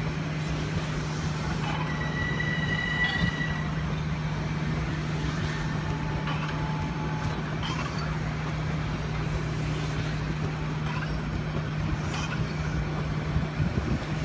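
Metro-North electric commuter train rolling slowly past, with a steady low hum and wheel rumble. A brief high-pitched squeal rings out about two seconds in, and a few light clicks follow.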